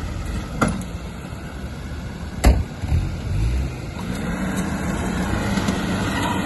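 Suzuki SJ 4x4's engine working off-road, with two sharp knocks, about half a second and two and a half seconds in, the second the louder. From about four seconds in, the engine note rises and then holds steady.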